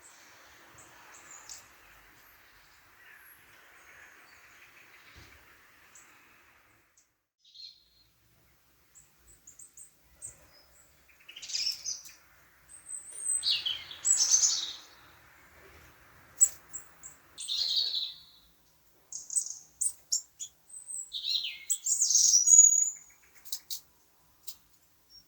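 European robin singing: short, high, varied phrases with quick slides in pitch, coming in spurts from about a third of the way in. Before that there is only a faint background hiss.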